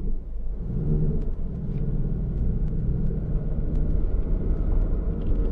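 A 2018 Ford Mustang GT's 5.0-litre V8 running as the car drives off, heard from inside the cabin: a steady low rumble that gets gradually louder.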